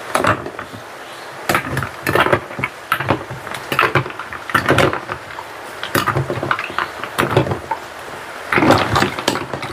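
Porcelain spoon stirring ice cubes and chopped fruit in a stainless steel bowl: irregular clinks and knocks of ice against the metal, with liquid sloshing.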